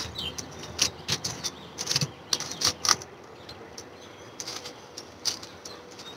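Scattered light clicks and taps, irregularly spaced, from slingshot gear being handled: a slingshot and its band sets being picked up and swapped.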